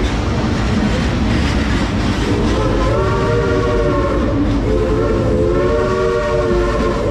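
Steam locomotive whistle of the Frisco Silver Dollar Line train sounding two long blasts about two seconds in, each swelling up slightly in pitch and sagging at its end, over the steady rumble of the train cars rolling along the track.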